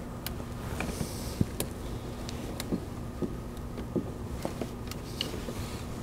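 Scattered small plastic clicks and taps from fingers working at a relay block in a truck's under-hood fuse and relay box, over a steady faint hum.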